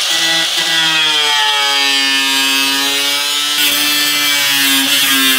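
Handheld angle grinder with a thin cutting disc cutting through a car's hood panel: a steady high whine with a hiss of disc on metal. Its pitch sags a little under load around the middle and picks up again near the end.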